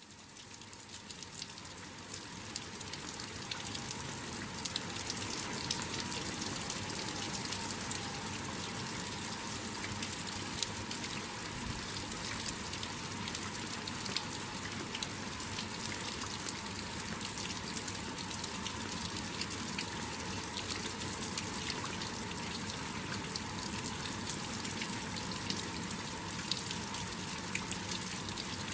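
Heavy rain falling in a thunderstorm: a steady hiss dense with the taps of individual drops, rising over the first few seconds and then holding even.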